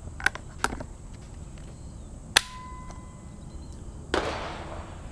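A single shot from a Marlin .444 lever-action rifle: one sharp crack about halfway through. A steady two-tone beep follows it for about a second and a half.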